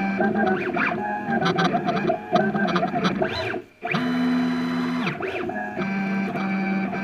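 Stepper motors of a home-built CNC router whining in steady tones that jump in pitch as the axes move, with rising and falling glides as a move speeds up and slows down in the middle, and a brief gap. A GoPro camera rattles in its mount throughout.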